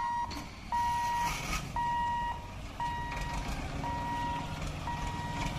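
Level crossing warning beeper sounding a steady electronic beep about once a second as the boom barrier lifts, over a low rumble of idling motorcycle and tractor engines.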